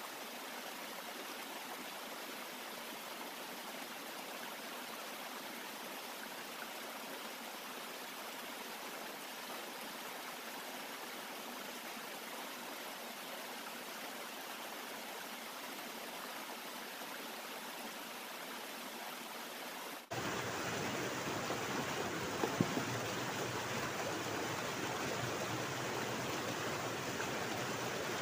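Steady rushing of a stream. About twenty seconds in it cuts abruptly to a louder, fuller rush of water, with a short knock a couple of seconds later.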